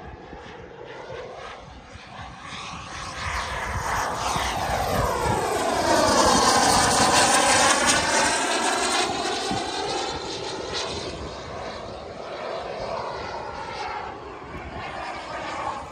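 Turbine-powered RC jet model, a Tomahawk Albatros L-39 with a JetCat 180 turbine, making a pass: the turbine's rushing whine swells to its loudest about six to eight seconds in, then fades as the jet flies away.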